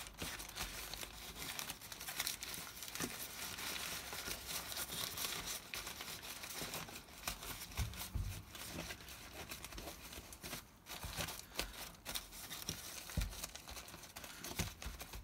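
Newspaper crinkling and rustling as it is crumpled, pressed down and tucked into place by hand, with small crackles throughout and a couple of soft thumps as it is pressed against the baseboard.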